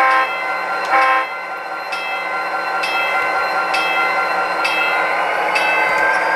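HO-scale model diesel locomotive's sound system giving two short horn blasts, one at the start and one about a second in, over a steady diesel engine sound. A faint click repeats about once a second.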